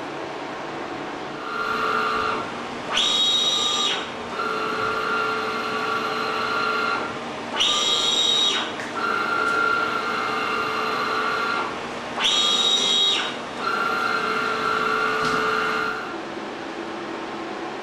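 Digital printing machine running through a repeating cycle: a steady two-tone motor whine lasting two to three seconds, then a higher whine about a second long that rises at its start and falls at its end. The cycle comes round about every four and a half seconds, three times.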